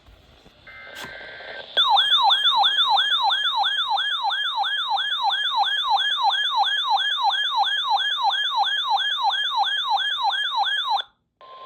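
Electronic siren tone warbling rapidly up and down, about three sweeps a second. It starts suddenly and cuts off abruptly about nine seconds later, after a brief steady two-tone beep.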